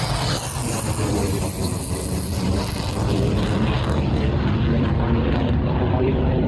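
F-16 fighter jet flying a display overhead, a steady low rumble of jet noise. Its high hiss falls away about four seconds in.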